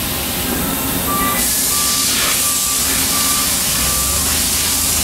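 Shop press running as its ram pushes the shaft out of a gearbox housing, a loud steady noise that turns into a strong hiss about a second and a half in. Through it, a short electronic beep repeats about every 0.7 s, like a vehicle's reversing alarm.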